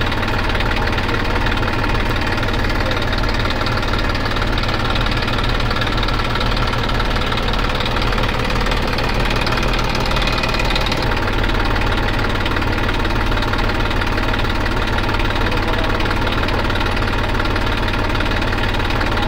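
Diesel engines of farm tractors and a tipper truck running steadily, a continuous engine sound with no break; the engine note shifts slightly about eleven seconds in.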